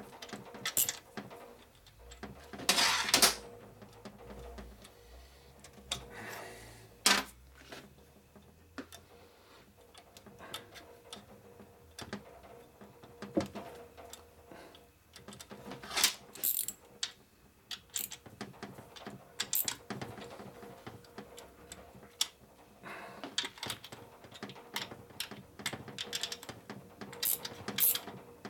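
Socket ratchet clicking and steel parts clacking as the cam gear train in a knucklehead crankcase is turned over by hand, being checked for drag. The clicks come in irregular bunches, with a longer, louder rattle about three seconds in.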